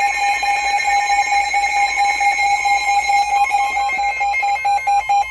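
Weather-radio alert tone announcing an incoming severe thunderstorm warning: one loud, steady, held tone that turns choppy in its last second and then cuts off.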